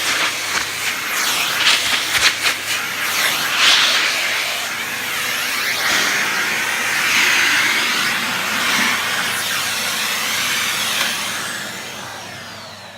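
Miele Compact C2 PowerLine cylinder vacuum cleaner running with its furniture tool on upholstery, a loud rushing suction hiss that rises and falls as the tool moves. Near the end the motor winds down with a falling whine.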